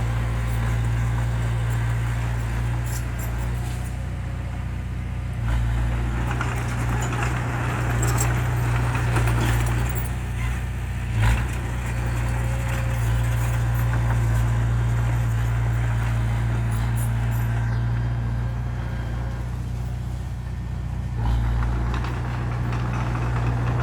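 Heavy vehicle's diesel engine running steadily with a deep drone, rising a little in level twice, with a single short knock about eleven seconds in.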